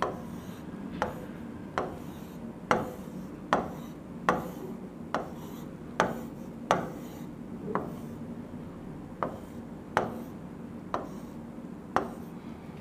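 Drawing lines by hand on a writing board: a sharp tap each time the tip meets the board, a little over once a second, with faint rubbing of the strokes in between. A low steady hum runs underneath.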